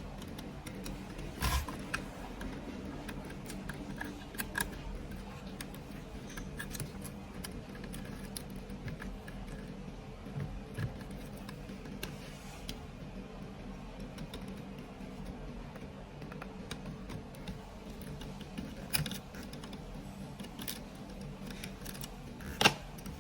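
Hands working on the internals of a fusion splicer: sporadic small clicks and taps of handling parts and connectors, the sharpest near the end, over a steady low hum.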